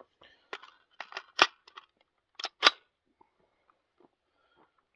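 A Renegade Mark II straight-pull .223 rifle being loaded by hand: a magazine seated and the action worked. A run of metallic clicks, with two sharp clacks about a second and a half in and about a second later.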